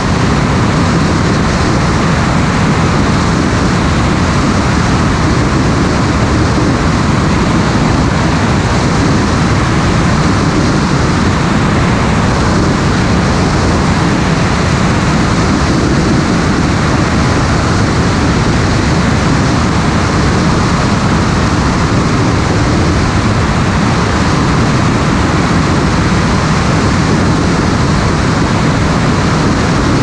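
Loud, steady rush of engine noise and airflow from a light aircraft in flight, picked up by a camera mounted on the airframe. It stays even throughout.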